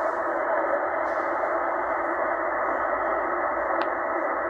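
Tecsun H-501X shortwave receiver in upper sideband on 3413 kHz, giving a steady, muffled static hiss. The Shannon VOLMET aeronautical weather broadcast from Ireland is only very faintly present in the noise.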